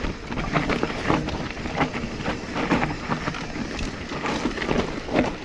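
Mountain bike (Specialized Stumpjumper EVO) rolling over rough dirt trail: tyres crunching, with a steady stream of rattles and sharp knocks from the frame and chain.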